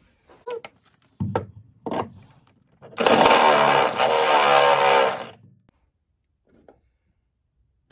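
Cordless drill running for about two seconds, boring out a hole in a steel body panel below the windscreen from 12 mm toward 18 mm, then stopping abruptly. A few short knocks from handling the tool come before it.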